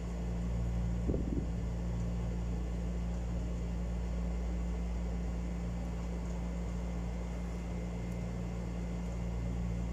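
Steady low mechanical hum of room machinery, with one soft knock about a second in.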